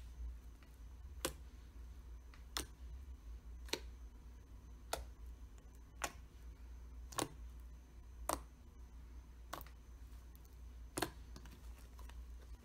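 Pink butter slime pressed and poked by hand, giving about nine short, sharp clicking pops roughly a second apart as air is pushed out of the slime, over a low steady hum.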